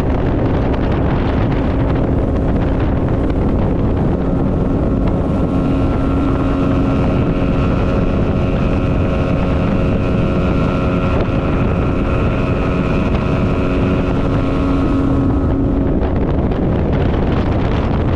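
Motorboat engine running steadily under way, its whine strongest through the middle, with wind rumbling on the microphone.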